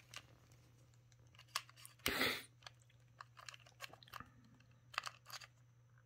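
Faint handling noise: a plug-in power adapter and its coiled cable turned over in the hand above plastic packaging, with scattered small clicks and crackles and a louder plastic rustle about two seconds in.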